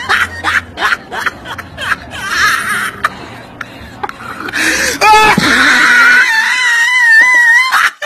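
People laughing in short bursts, then a person's high, wavering wail held for about a second and a half near the end.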